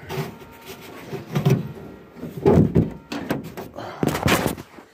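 Several metal clunks and rattles, about five spread over a few seconds, as the hood of a 1980 Chevy is unlatched and raised.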